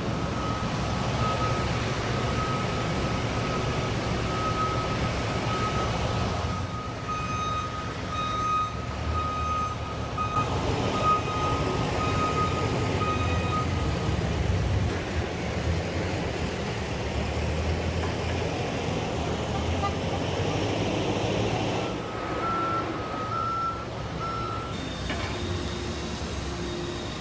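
Construction-site trucks and heavy equipment running, with a steady low engine rumble and reversing alarms beeping. One alarm beeps repeatedly through the first half, a second, higher-pitched alarm beeps alongside it for several seconds, and another short run of beeps comes near the end.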